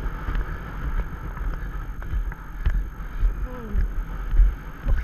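Horse cantering on a sand track, its strides giving a steady rhythm of low thuds, about two a second, with wind on the microphone.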